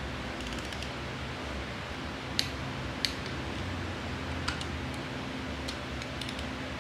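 Ratchet wrench on the cylinder head bolts of an aluminium V6 head: short runs of ratchet clicks, with three sharp metal clicks or knocks in the middle, over a steady shop hum.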